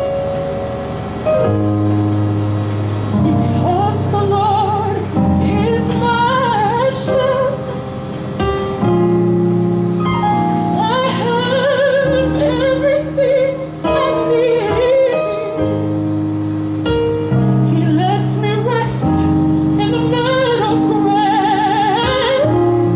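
A woman singing in a classical, operatic style with strong vibrato, accompanied by held chords on an electronic keyboard. The keyboard plays alone at first, and the voice comes in about three seconds in and carries on in long phrases.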